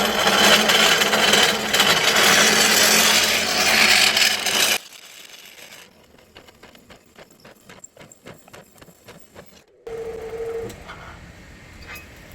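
Cold saw cutting through stainless steel: a loud, steady cutting noise over a low motor hum for about five seconds, which stops abruptly. Faint rapid ticking follows, about four a second.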